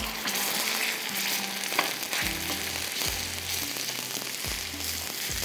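Raw chicken mince sizzling and frying in hot oil on a flat tawa griddle while a spatula spreads and turns it. There is one sharp click about two seconds in.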